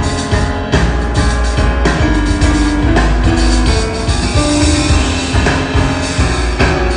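A jazz piano trio playing live: a busy drum kit with cymbals over sustained piano chords and double bass.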